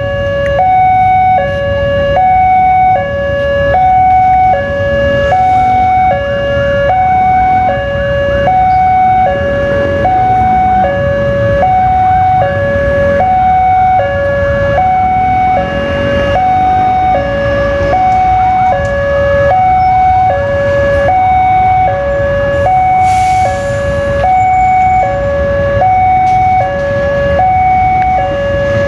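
Railway level-crossing warning alarm sounding a steady electronic two-tone hi-lo, evenly alternating notes each a little over half a second long, over a continuous low rumble.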